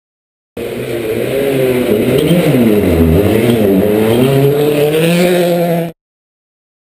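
Hyundai i20 WRC rally car's 1.6-litre turbocharged four-cylinder engine taking a hairpin: the engine note falls as the car slows into the bend, then climbs as it accelerates out. The sound starts abruptly about half a second in and cuts off suddenly near the end.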